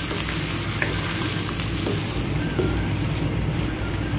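Onion paste sizzling in desi ghee in a wok as it is stirred with a wooden spatula, with a few light knocks of the spatula against the pan. The paste is being fried to cook off the water it releases.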